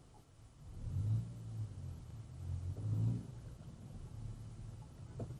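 Car engine and road noise heard from inside the cabin as it drives in traffic: a low hum that swells twice, about a second in and again around three seconds in.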